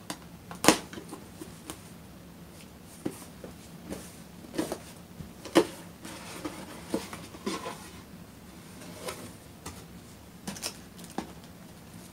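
A cardboard subscription box being opened and handled by hand: irregular knocks, clicks and rustles of the box and its packed contents. The loudest is a sharp knock about a second in.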